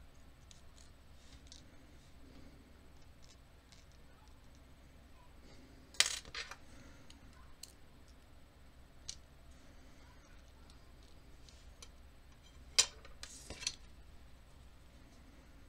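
Small metal parts of an American Lock 1100 series padlock clicking and clinking as the lock cylinder is put back together by hand. Faint ticks throughout, with a sharp metallic clink about six seconds in and another about thirteen seconds in.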